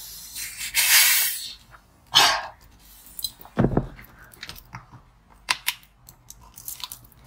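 Handling of a chilled two-litre plastic cola bottle: a loud fizzing hiss about a second in, a shorter burst soon after and a dull thump, then small wet clicks as the cola is sipped straight from the bottle.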